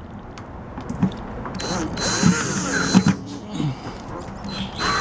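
A screw being driven to fasten a microwave's turntable motor: mechanical clicking, a short whirring stretch from about one and a half to three seconds in, and a few knocks of metal parts.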